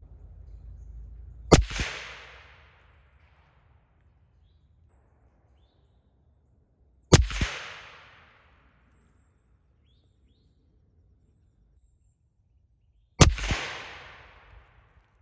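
Three shots from a suppressed Tikka T3 rifle in .243 Winchester, about six seconds apart, heard from down by the target. Each is a sharp double crack followed by a rolling echo of about a second.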